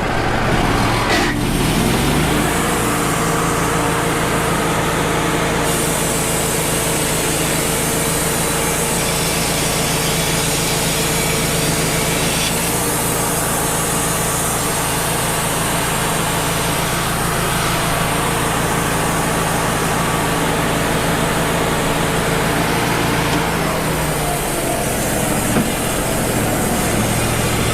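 Wood-Mizer LT35 HD portable band sawmill making a cut along a cedar log. The engine revs up about two seconds in, then runs steadily under load while the band blade hisses through the wood, and it drops back near the end as the cut finishes.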